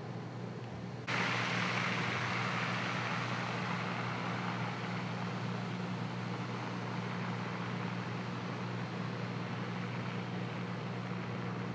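Smoke venting from a manhole under a parked car after an underground electrical explosion: a steady rushing hiss that starts abruptly about a second in, over a constant low hum.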